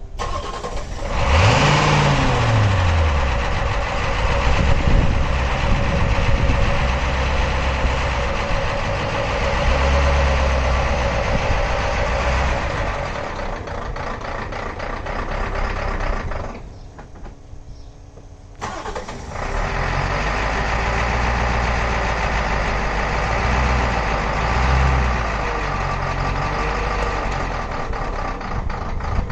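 Ford 6.9L IDI V8 diesel engine starting up: it catches about a second in, revs up and falls back, then runs steadily at idle. The engine sound drops out sharply for about two seconds a little past halfway, then the diesel is running again.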